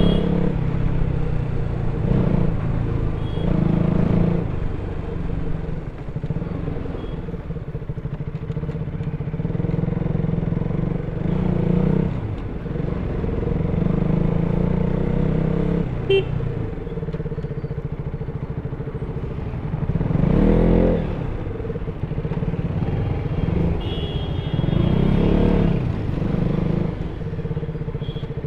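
KTM RC 200's single-cylinder four-stroke engine running through the stock exhaust while riding, the throttle opened and eased off again and again. It revs up briefly several times, loudest about twenty seconds in.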